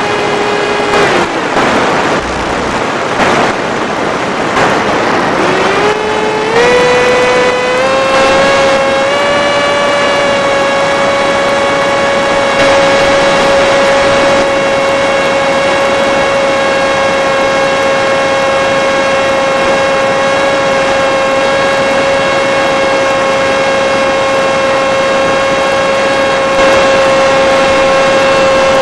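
FPV Skyfun flying wing's electric motor and propeller whining at a steady pitch. About a second in the whine drops away under a rushing noise. From around six seconds it climbs back in steps to a slightly higher pitch and holds steady.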